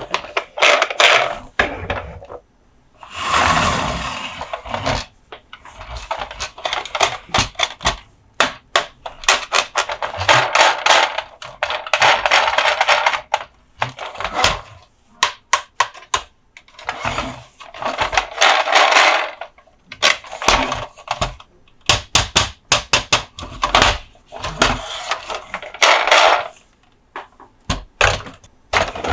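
Close-up hand sounds on diecast Monster Jam toy trucks: many quick taps and clicks, broken by stretches of scratching noise a second or two long, several times over.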